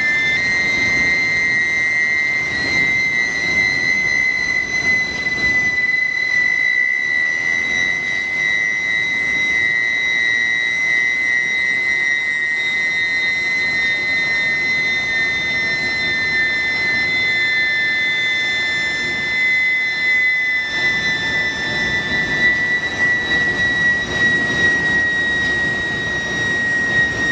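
Induction billet heating furnace running: a steady high whine from the medium-frequency induction coil, with a rough mechanical rumble beneath it. The whine slips slightly lower in pitch near the end, and the rumble grows louder in the last few seconds.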